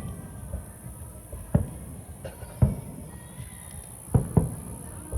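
Distant fireworks shells bursting: about five deep booms at irregular intervals, two of them close together about four seconds in.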